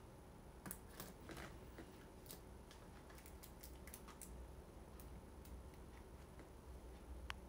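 Near silence: faint room tone with a scattering of small, light clicks and ticks, a few close together in the first few seconds and one sharper click near the end.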